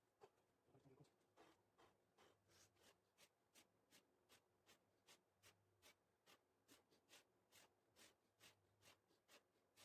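Near silence with faint, evenly spaced short hisses, about three a second, from a man doing rapid Hindu squats with the recording sped up four times.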